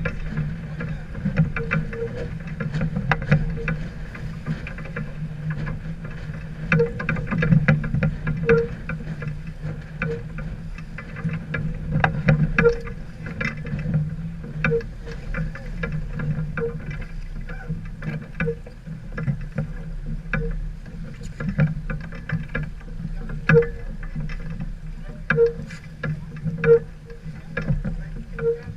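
Sailboat under way: a steady low hum with water noise, scattered light clicks and knocks, and a faint short tone recurring every second or two.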